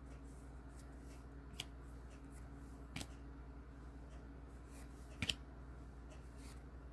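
Baseball trading cards being handled and flipped through: faint card handling with three sharp clicks, the loudest about five seconds in, over a low steady hum.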